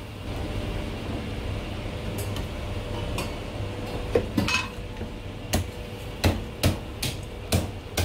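A few light metal clinks of tongs and a ladle in a stainless steam tray, then from about four seconds in a cleaver chopping marinated goose on a thick wooden chopping block. The chops are sharp and irregular, about eight of them, roughly one every half second.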